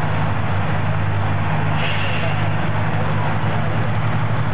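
Steady low drone of an armoured tracked vehicle's diesel engine running, with a brief hiss about two seconds in.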